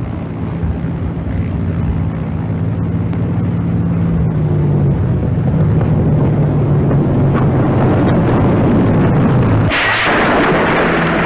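Propeller plane's piston engine droning steadily and growing louder as it comes in. About ten seconds in the drone cuts off and a loud crashing, scraping noise takes over as the plane slams onto the carrier deck.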